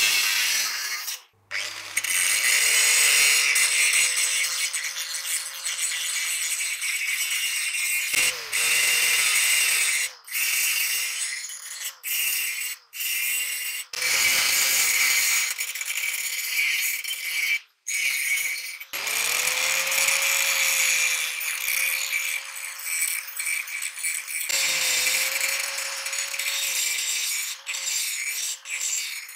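INGCO angle grinder running, its disc grinding into spring steel: a steady motor whine under a loud hiss of metal being ground. It cuts off suddenly several times and starts again.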